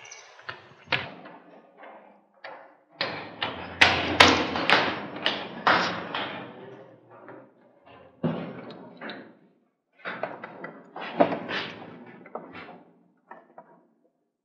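Hurried footsteps on the metal stairs of a lighthouse tower: a run of loud thuds, densest about three to seven seconds in, then more scattered knocks.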